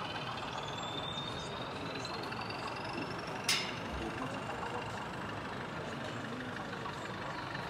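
OO gauge model electric multiple unit running on the layout, a thin whine rising steadily in pitch, over a steady hall hubbub. A single sharp click about three and a half seconds in.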